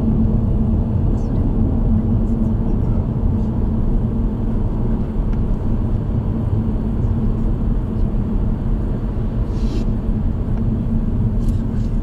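Car driving along a road, heard from inside: a steady low rumble of engine and tyre noise.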